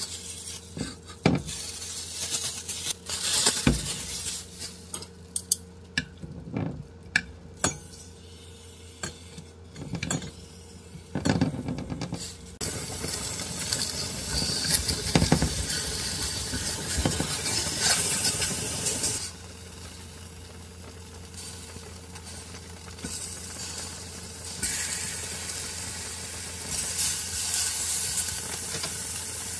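Knocks and clinks of a stainless-steel frying pan and utensils on a ceramic hob. From about twelve seconds in, sliced pork sizzles steadily in the hot pan while it is stirred with tongs. The sizzle eases off for a few seconds and then comes up again near the end.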